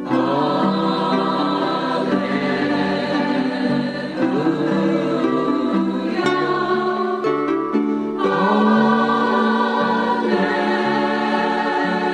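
Choral music: several voices singing long held notes that change every couple of seconds.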